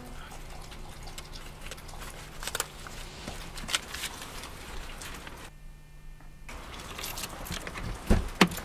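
Handling noises inside a parked car's cabin: rustling and small clicks as a leather bag is handled, over a faint steady hum, with two sharp knocks near the end.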